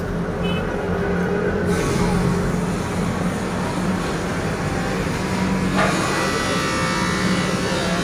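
A steady low machine hum; just before six seconds in, a higher whine with many overtones joins it.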